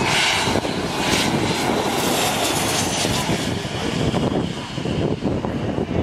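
Hawker 800XP business jet's twin Honeywell TFE731 turbofans at approach power as it passes low overhead and comes in to land, a loud steady jet rush.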